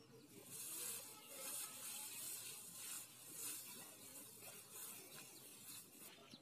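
Faint rustling hiss that swells and fades about four times.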